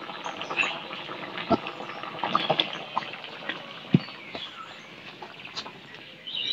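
A steel kadai of curry lifted off a wood fire and set down on the ground, with scattered clicks and knocks of metal and one firmer knock about four seconds in, over a low crackling hiss.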